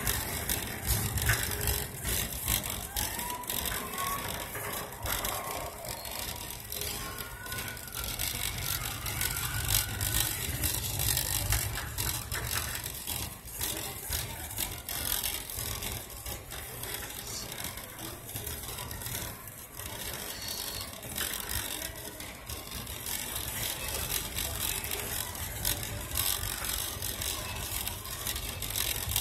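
Metal wire shopping cart rattling continuously as it is pushed along a hard store floor, with many small clicks and knocks from its wheels and frame.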